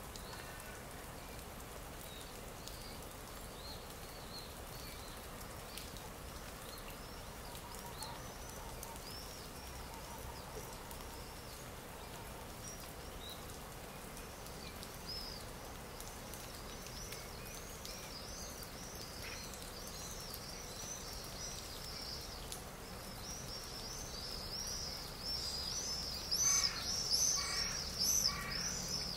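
Stock nature-sound recording of small birds chirping over a steady faint hiss. The high chirping grows denser and louder in the last few seconds, joined by a run of louder, harsher calls.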